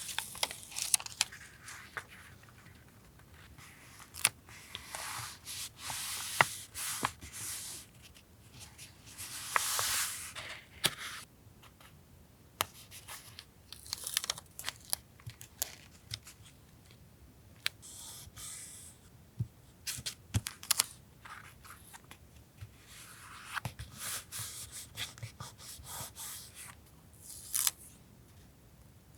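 Paper being handled for a journal collage: several short bouts of tearing or peeling, with rustling and scattered small clicks and taps.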